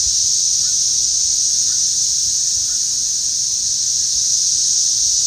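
A dense chorus of cicadas buzzing together as one loud, steady, high-pitched drone without a break.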